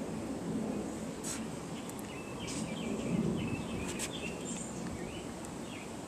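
Outdoor background noise, a steady low rumble, with a small bird chirping in short, broken phrases from about two and a half to five seconds in.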